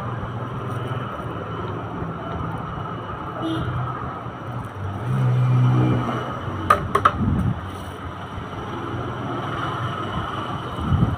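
A steady low rumble that swells about halfway, followed by two or three sharp clicks of hard plastic as hands handle the plastic-wrapped toy panel of a baby walker.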